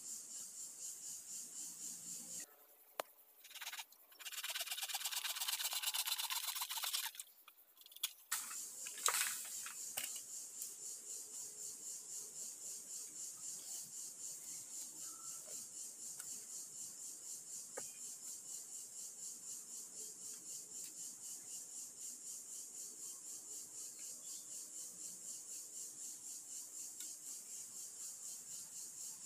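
A hand saw rasping through a green bamboo culm for about three seconds, followed by a few sharp knocks of bamboo. A steady insect chorus pulses throughout, about five pulses a second.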